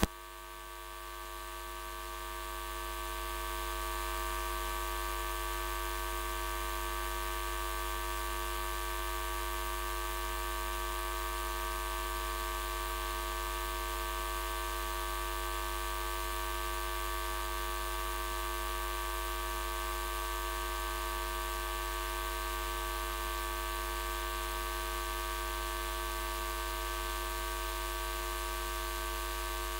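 Steady electrical mains hum and buzz, a stack of even tones over a deep low drone. It swells over the first few seconds, then holds unchanged.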